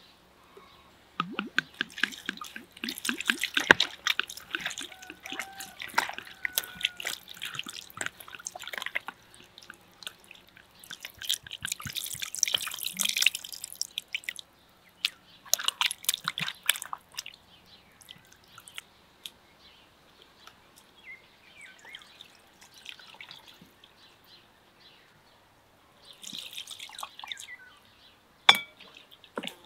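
Water splashing and dripping in a plastic bowl as raw meat chunks are squeezed and rinsed by hand, with water poured in from a clay jug. It comes in several irregular bursts, and there is one sharp knock near the end.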